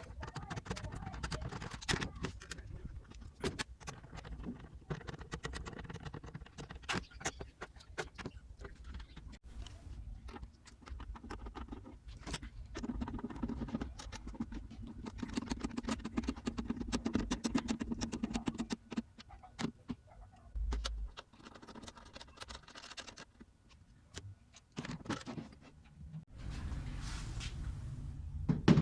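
A long run of small clicks, taps and light rattles, as of hard objects being handled, coming thicker and faster in the middle.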